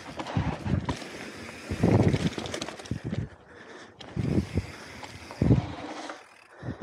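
Mountain bike rolling fast down a dirt trail: irregular thumps as the tyres and suspension hit bumps, with clicks and rattles from the bike over steady wind noise on the microphone.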